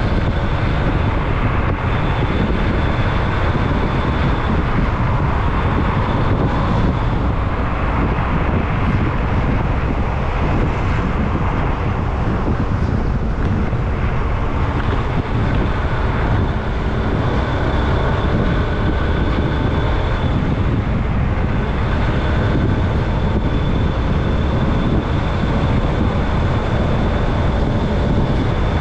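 Steady engine and road noise of a moving vehicle at highway speed, with a faint high steady whine running through it.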